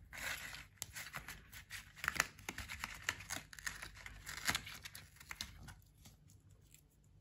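Thin cardboard mailer being torn open by hand along its perforated tear line, a run of uneven ripping and paper rustling that dies away near the end.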